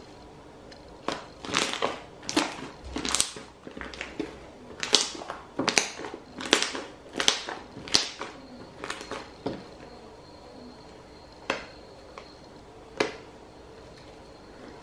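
Slime being squeezed, kneaded and stretched by hand, giving off sharp crackling pops about once or twice a second. The pops thin out after about ten seconds, and two single pops follow near the end.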